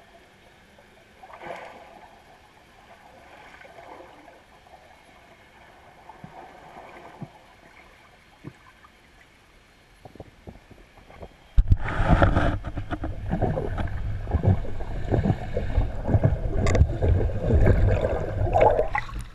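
Underwater sound picked up through a GoPro's waterproof housing: a faint hiss with scattered small ticks, then, about twelve seconds in, a sudden loud churning of rushing water and bubbles against the housing as the camera moves quickly through the water.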